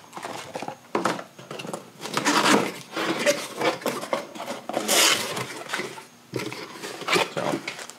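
A cardboard box of plastic-wrapped pistons being opened and handled: irregular scraping and rustling of cardboard flaps and wrapping, with light knocks and clicks.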